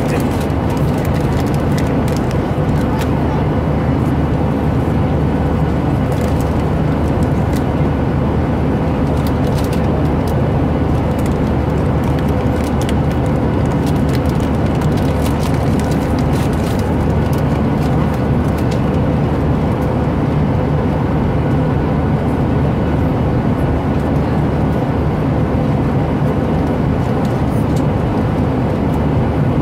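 Steady airliner cabin noise: the even, continuous roar of the engines and airflow with a faint steady hum through it. Faint short crinkles from the snack bag being handled come through now and then.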